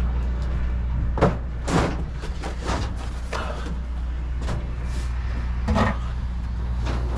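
Steady low hum of an idling engine, with cloth rustling and a few knocks and clatters as a shirt is pulled out and handled, the sharpest knock about a second in.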